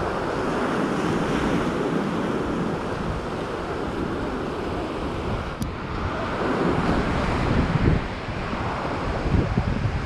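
Ocean surf breaking and washing up on a sandy beach, with wind buffeting the microphone in gusts.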